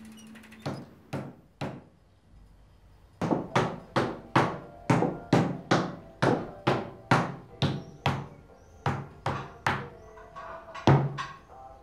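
Steady knocking on a wooden kitchen table: three knocks, a short pause, then an even run of about two knocks a second.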